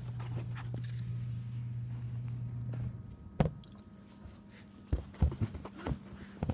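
A steady low machine hum that cuts off suddenly about three seconds in, followed by footsteps and a few sharp knocks.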